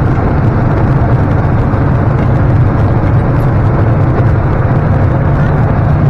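John Deere S780 combine's diesel engine running steadily, a loud, even low drone.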